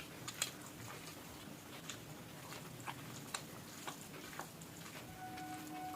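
Close-miked eating: scattered wet mouth clicks and smacks while chewing a mouthful of rice and curry. A faint steady tone comes in near the end.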